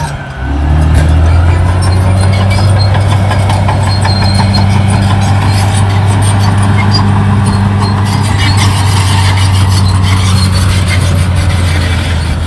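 Caterpillar D6R XL bulldozer's diesel engine running steadily under load, with a deep, even drone; the sound drops out briefly about half a second in.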